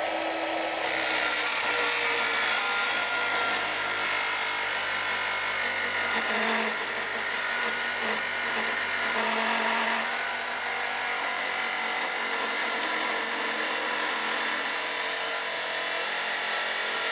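Milwaukee Fuel metal-cutting circular saw running at full speed and cutting through steel plate: a steady, dense cutting noise with high ringing tones from the blade in the steel, stopping right at the end.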